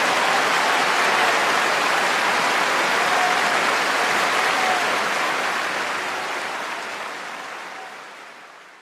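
Applause, steady at first and then fading out over the last few seconds.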